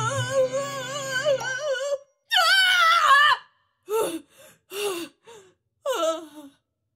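Cartoon character's voice wailing in fright: a long wavering wail, then a louder wail, then three short whimpering cries, over a low pulsing music tone that stops about a second and a half in.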